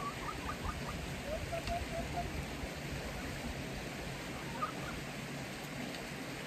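Backyard chickens giving short soft chirping calls, a few in quick runs near the start and one more later, over a steady outdoor hiss.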